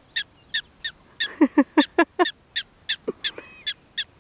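Black-tailed prairie dog giving repeated sharp alarm barks, about three a second, in a steady even rhythm. A lower, rapidly pulsing sound joins in between about one and two seconds in.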